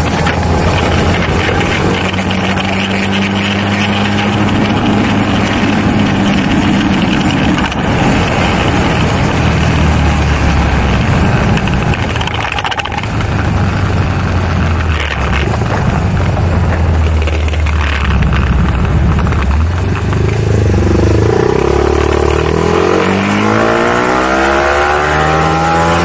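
BMW G310R's single-cylinder engine running steadily under way. Near the end it rises in pitch several times as the bike accelerates.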